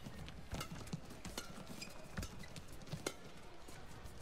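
Badminton rally: rackets hitting the shuttlecock back and forth in sharp cracks about once a second, with players' footsteps thudding on the court.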